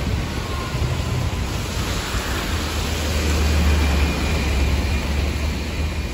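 Street traffic on a wet road: a red double-decker bus passes close by, its engine a low drone that is loudest around the middle, over a steady hiss of tyres on wet tarmac.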